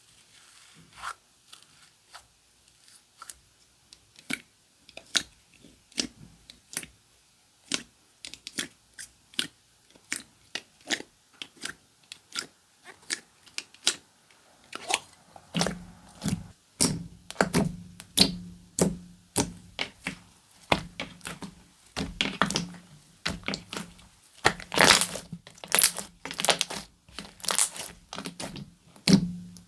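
Comelie 'Beef Soup' slime being pressed and squished by hand, making a run of sharp clicking pops. The pops are sparse at first, then come faster and louder about halfway through.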